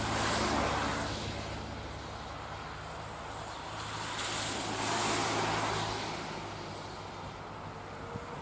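JNR 115 series electric train pulling slowly into the station, with a steady low hum from the train that fades away about six seconds in. Two swells of rushing noise, about half a second in and about five seconds in, sit over it.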